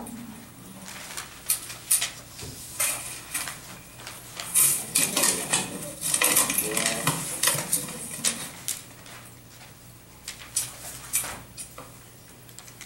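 Irregular sharp clicks and light clatter of small hard objects, with faint voices murmuring around the middle.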